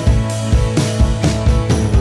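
Background music with a steady drum beat, about two beats a second.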